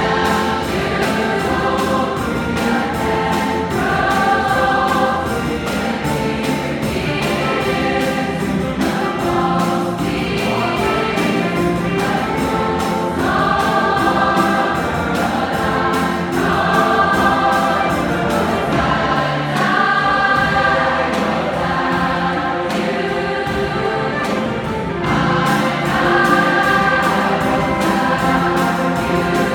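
Large choir singing in harmony, accompanied by a jazz band with a steady beat.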